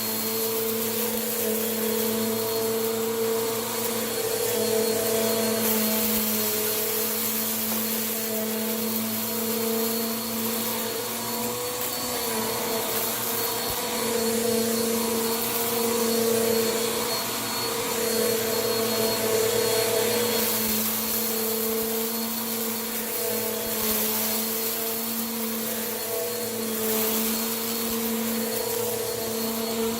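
Vacuum cleaner running continuously as it sucks up dirt, a steady motor hum with a high rushing hiss that rises and falls a little as it is worked.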